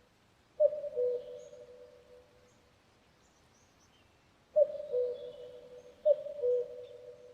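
Common cuckoo calling its falling two-note "cuck-oo" three times: once near the start, then twice in quick succession in the second half. Faint high chirps of small birds sound in the background.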